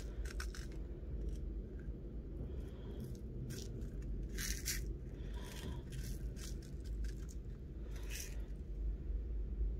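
Small clear plastic bead container and tiny glass seed beads being handled: a few short bursts of rustling and light scraping as beads are tipped into a palm and the container is set down. A low steady hum runs underneath.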